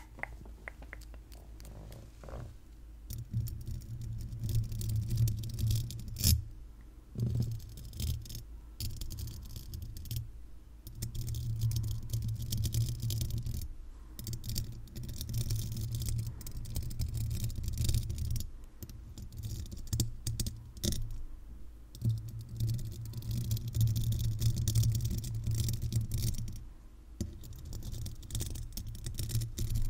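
Paper clips worn over the fingertips scratching and tapping on a microphone's metal mesh grille: close, dense scratchy crackling with a heavy low rumble. It comes in stretches of a few seconds, with short pauses and a few sharp clicks between them.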